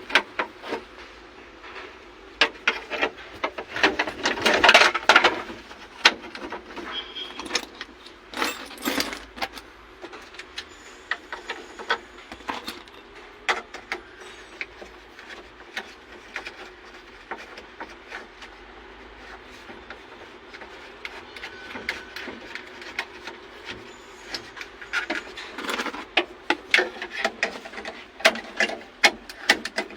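Irregular clicks, clinks and knocks of hand tools and metal parts as a replacement ignition switch is fitted to a backhoe, busiest about four seconds in and again near the end. The engine is not running.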